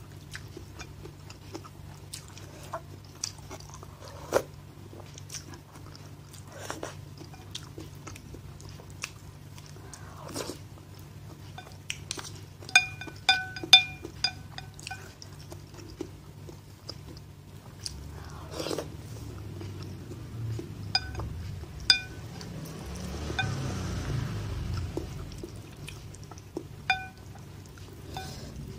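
Eating sounds from a bowl of instant noodle soup: utensils tapping the ceramic bowl in short ringing clinks, a quick run of them about 13 seconds in, with chewing between and a longer slurp around 23 seconds in.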